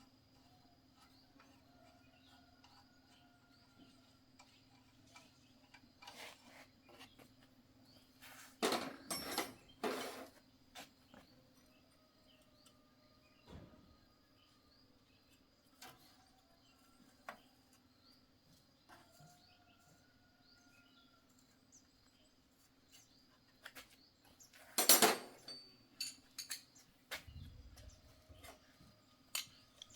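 Metal tools and parts clinking and knocking while being handled during tractor repair work, with louder clatters about nine seconds in and again near twenty-five seconds, over a steady low hum.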